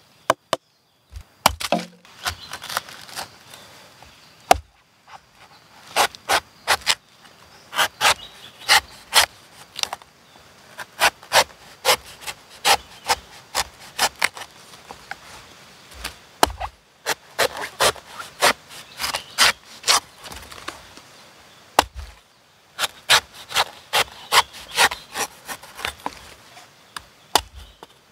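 Cleaver shaving the husk off a young pink coconut: crisp slicing strokes through the fibrous husk, several a second in runs, with short pauses between them.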